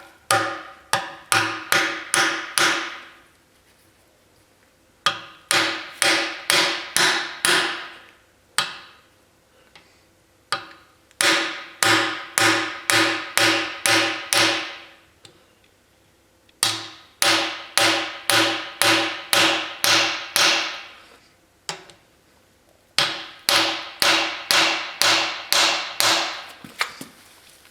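Hammer striking a seal driver tool, driving a new axle seal into the axle tube of a GM 12-bolt rear end. The strikes come in five runs of six to nine quick blows with short pauses between, plus a couple of single blows, and each blow rings with a metallic tone.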